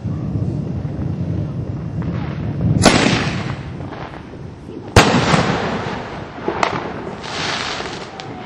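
Consumer fireworks going off: a low rumble, then three sharp bangs about three, five and six and a half seconds in, the middle one loudest, each trailing off in a hiss.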